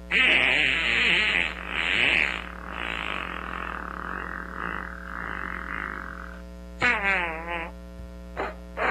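Fart sound effects: a long, rough, sputtering fart starting right at the beginning and trailing off over about six seconds, then a shorter warbling one about seven seconds in, with a couple of brief blips near the end. A steady electrical hum runs underneath.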